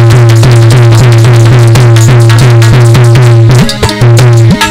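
Instrumental Dhola folk music accompaniment: a quick, even pulse of about four to five beats a second over a sustained low drone. About three and a half seconds in, the rhythm changes and separate drum strokes with short rising pitch swoops come in.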